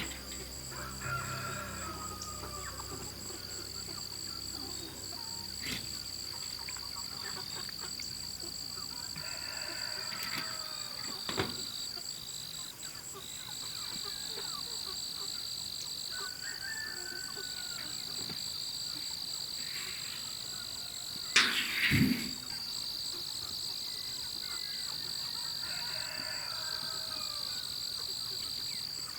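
Domestic fowl calling four times at intervals of several seconds, each call lasting about a second and a half, over a steady high-pitched insect chorus. A loud sudden bump comes about 21 seconds in.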